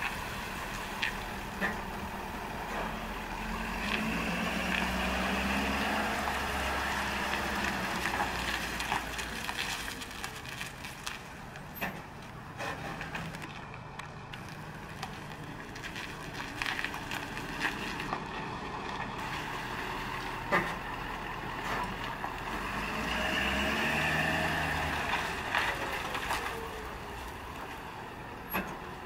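Ford F-450's 6.7-litre Power Stroke V8 turbo-diesel running as the utility truck is driven slowly around a lot. The engine note rises twice as it pulls away, once about four seconds in and again near the end. Scattered sharp clicks are heard throughout, one louder than the rest about two-thirds of the way in.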